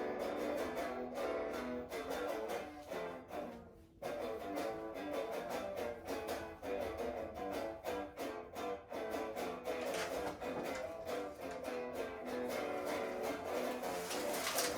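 Guitar music, plucked notes with some strumming, dipping briefly just before four seconds in and coming straight back.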